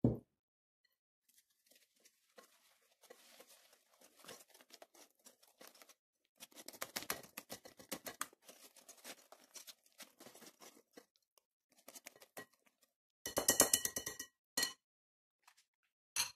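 Small wire whisk stirring grated coconut into a wet egg-and-sugar batter in a ceramic bowl: soft scraping strokes at first, then faster, denser whisking about halfway through. Near the end, a brief louder clatter with a ringing edge, then a couple of short clicks.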